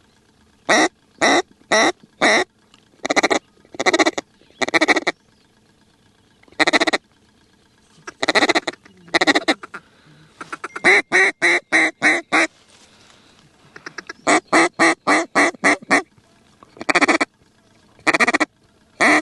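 Hand-blown mallard duck call sounding a loud string of hen quacks, broken into groups with pauses, including two quick runs of about eight notes, calling to circling ducks.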